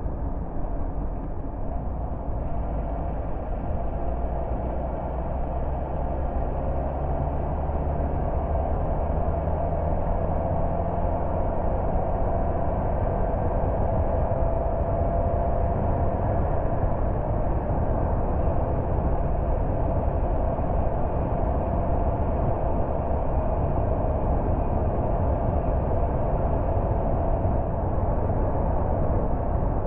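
Car driving on the road: steady tyre and road noise with the engine running underneath, its note climbing a little in the first half as it picks up speed.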